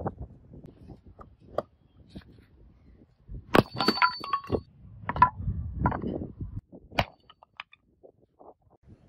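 A heavy metal battle axe head (about 5 kg) chopping into bricks and a wooden board on a concrete floor: a series of sharp strikes, the loudest about three and a half seconds in with a brief metallic ring after it, and a last sharp crack near seven seconds in.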